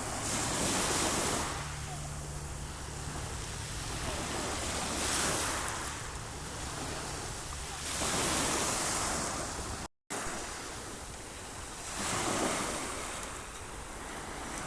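Sea waves washing onto the shore, each surge swelling and fading every three to four seconds. The sound cuts out completely for an instant about ten seconds in.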